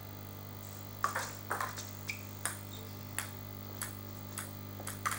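Table tennis ball being hit back and forth in a rally: a string of sharp clicks off bats and the table, starting about a second in and coming roughly every half second to second, over a steady low hum.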